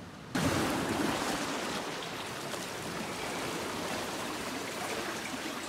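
Seawater sloshing and washing around concrete wave-break blocks: a steady rushing that starts abruptly just after the start.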